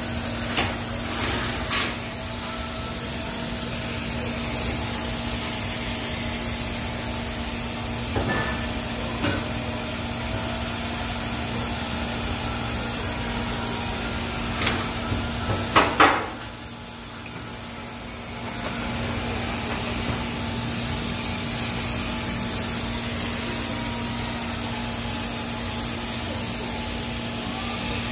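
TIG welding arc on a stainless steel pipe root pass: a steady hiss over a low hum. A few ticks and knocks come in the first half, and the sound drops away for a couple of seconds past the middle before the arc picks up again.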